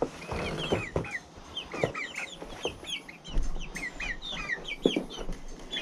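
Chickens calling in many quick, high chirps and peeps, with a few sharp knocks scattered through.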